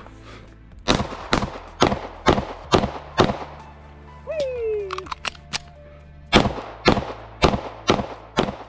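Pistol fired in two rapid strings of six shots each, about two shots a second. There is a pause of about three seconds between the strings, with a brief falling tone and two lighter clicks in it.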